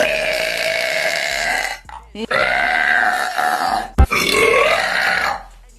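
A woman belching: three long, drawn-out burps in a row, with a short sharp click between the second and third.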